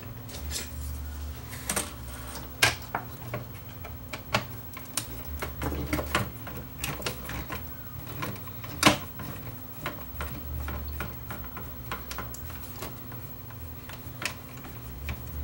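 Screwdriver backing out small screws from the CD deck's mounting inside a Panasonic bookshelf stereo: a run of small, irregular metal clicks and ticks, with one sharper knock about nine seconds in, over a faint low hum.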